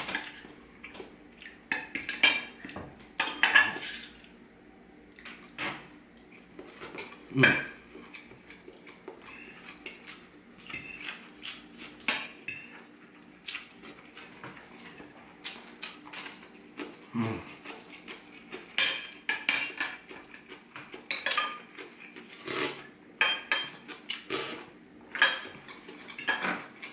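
Metal fork and spoon clinking and scraping against a ceramic plate of chicken rice, in irregular strokes.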